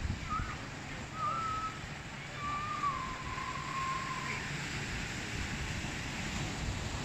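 Wind noise on the microphone over the wash of surf, with a few thin whistled tones; the longest is a slightly falling whistle lasting about two seconds, a few seconds in.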